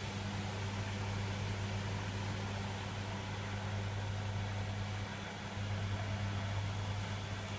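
Servis Quartz MK601 washing machine running during a wash cycle: a steady low hum, weakening briefly about five seconds in.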